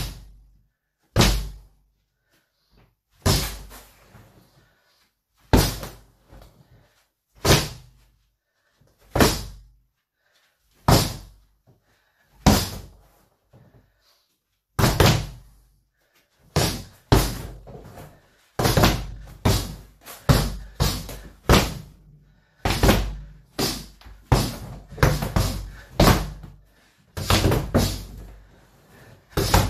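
Punches landing on a Century heavy bag, each a dull thud. Single blows come about every two seconds at first, then quicker runs of punches, roughly two a second, from about halfway through.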